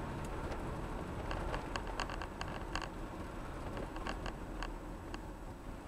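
Steady low road and engine rumble inside a car driving on a city street, with faint, irregular light ticks scattered over it.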